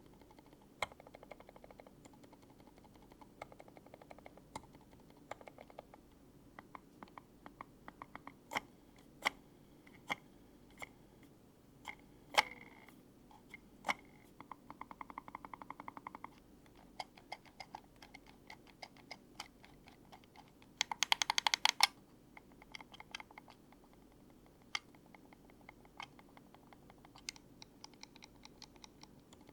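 Silent-switch buttons of ergonomic office mice clicked one after another: mostly soft, muted clicks, with a few sharper ones and a fast run of rapid ticks about two-thirds of the way through.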